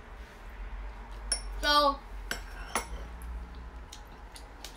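A few light, scattered clinks of a metal fork against a ceramic bowl and plate while eating.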